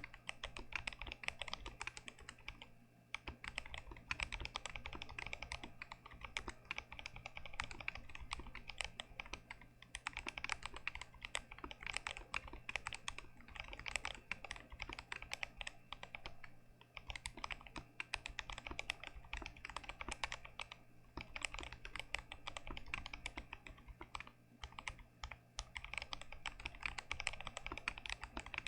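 Continuous fast typing on an unmodded Glorious GMMK Pro mechanical keyboard with Gazzew Boba U4T tactile switches: rapid, uneven keystroke clacks with a few brief pauses.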